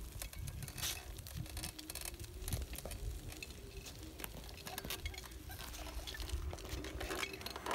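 Hoverboard go-kart driving over asphalt: a faint steady hum from its electric hub motors over tyre and frame noise, with scattered clicks and a low rumble.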